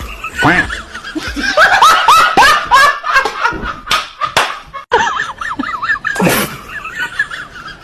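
A person laughing in repeated high giggles, with several sharp slaps or knocks in between.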